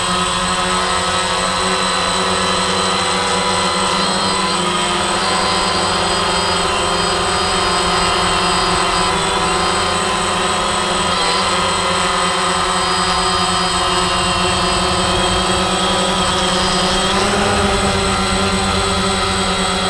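DJI multirotor drone's electric motors and propellers whirring steadily, heard up close from the camera on board: several whining tones that drift a little in pitch as the motor speeds change, shifting near the end.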